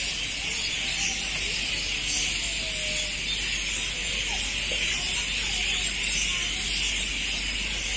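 Steady high-pitched hiss of outdoor evening ambience, even throughout, with faint distant voices.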